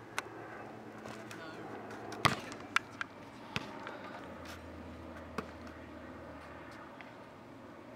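A basketball striking and bouncing on an outdoor asphalt court: several sharp thuds, the loudest a little over two seconds in, followed closely by a few quicker bounces, then single thuds later.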